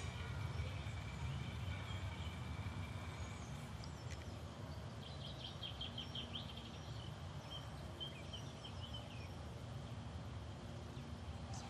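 Faint outdoor garden ambience: a low steady rumble, a thin steady tone for the first few seconds, and a bird chirping in quick runs of short notes from about five to nine seconds in.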